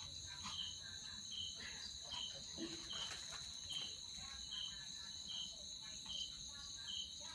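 Faint chorus of night insects: a steady high trill, with one insect chirping at an even pace, a little more than once a second.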